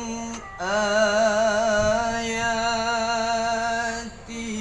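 A man's voice chanting Quranic recitation in melodic tajwid style, holding two long notes with a wavering, ornamented pitch, with a brief breath about half a second in.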